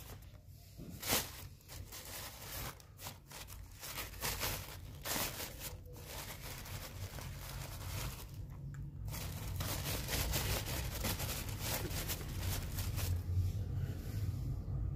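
Thin black plastic bag rustling and crinkling as it is handled and pulled open around a load of mandarins, in irregular sharp crackles that grow denser in the second half.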